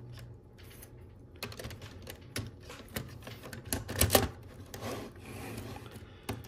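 Hard plastic Lego Technic parts clicking, knocking and rubbing as a large curved body panel is handled and pressed onto the model, in irregular clicks with a louder cluster about four seconds in.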